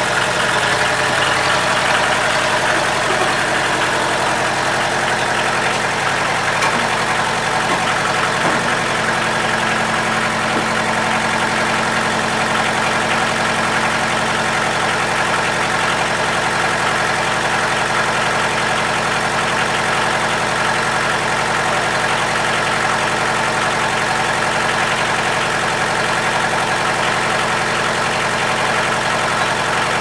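Compact tractor engine running steadily, a constant low engine note with no revving.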